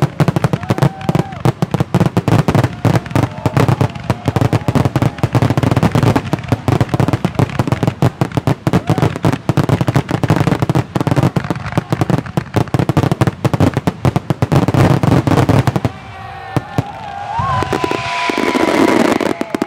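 Fireworks going off in a rapid barrage, many sharp bangs and crackles a second. Near the end the bangs give way to a hiss that grows louder, with whistle-like tones gliding in it.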